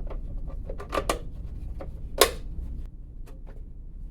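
Hercules bandsaw's side cover plates being slid along their guides and snapped back on: a run of short clicks and knocks, with a double knock about a second in and the loudest knock a little over two seconds in.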